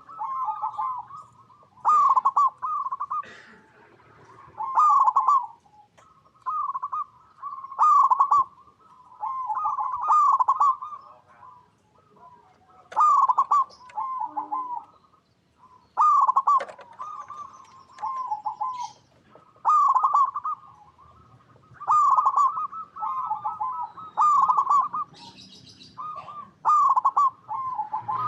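Local zebra dove (perkutut) in full song: phrases of quick rolling coos, one phrase every two to three seconds.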